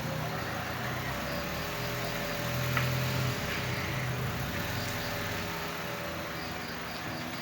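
A motor vehicle's engine running, a steady low rumble with a faint whine held above it.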